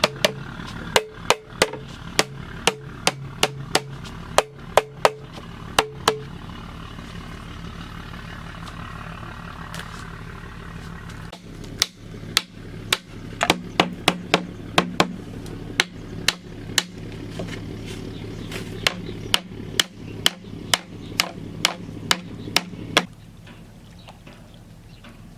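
Repeated sharp blows of a hand tool striking bamboo, about two a second, stopping for several seconds midway and then resuming. A steady low hum runs underneath.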